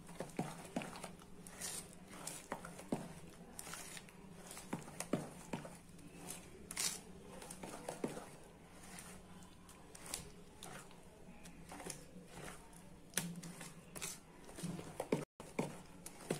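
A spoon stirring and folding thick, grainy idli batter in a plastic bowl: irregular wet scrapes and squelchy clicks several times a second, as baking soda is mixed through the batter.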